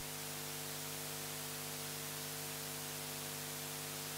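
Steady electrical hum with an even hiss over it: the background noise of the recording or sound system, with no other event.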